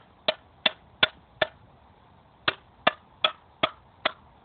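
The hardened edge of a freshly quenched, hand-forged blade chopping into the edge of a piece of steel angle, a test of the blade's hardening. Nine sharp metallic strikes, each with a short ring, in two quick runs of four and five about two and a half a second, with a pause near the middle.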